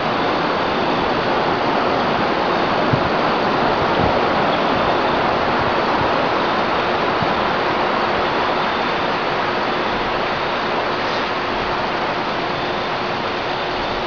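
Steady rush of river water running over rocks.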